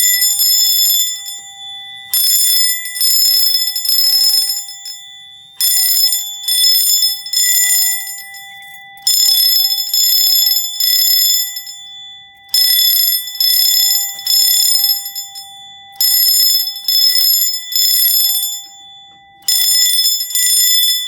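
Fire alarm bells ringing in the three-pulse temporal code: three rings, a pause, repeating about every three and a half seconds. This is the system in alarm from a pulled manual pull station.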